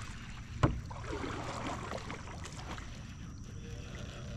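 Canoe paddle working the water to back the boat up, a low steady wash of water, with one sharp knock on the hull about two-thirds of a second in.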